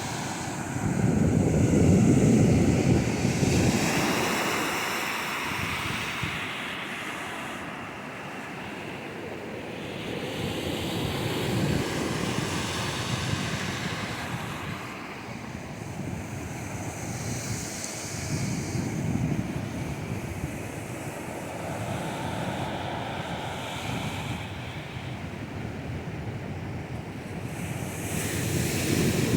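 Ocean surf breaking on a beach, the wash swelling and falling back every several seconds, loudest about two seconds in. Wind buffets the microphone.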